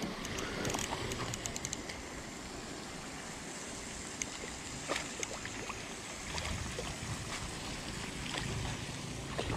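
Small spinning reel being cranked, with a run of light clicks, as a small bass is played in on light line, over a steady hiss of outdoor noise with light water movement.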